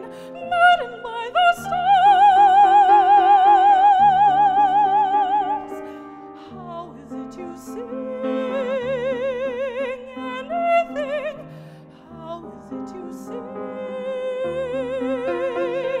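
A classically trained soprano singing with wide vibrato over piano accompaniment. She holds one long high note for about four seconds near the start, then sings lower, shorter phrases.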